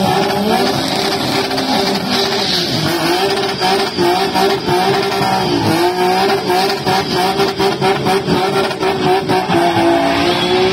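Drag cars launching off the start line, their engines revving hard and held at high revs with a few brief dips. One car spins its tyres in a cloud of smoke, with some tyre squeal.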